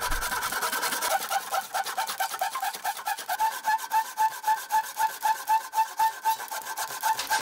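Tenon saw cutting down into the end of an ash axe handle in quick, even back-and-forth strokes, rasping through the wood. It is sawing the slot for the handle's wedge.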